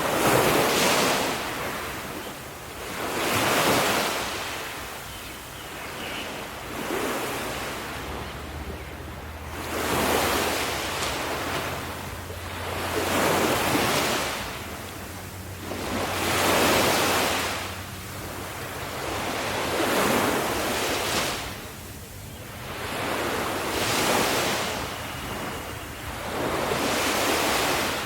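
Ocean waves breaking on the shore, one surge of surf every three to four seconds, each swelling and then washing back.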